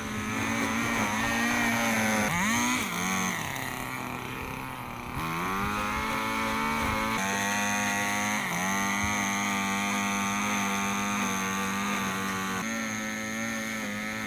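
Handheld string trimmer engine running at high speed, its pitch dropping and rising again several times in the first few seconds as the throttle is eased and squeezed, then holding fairly steady while cutting grass.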